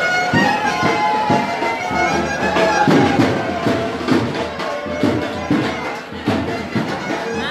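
Live band music: a wind instrument plays a melody of held notes over a drumbeat of about two beats a second.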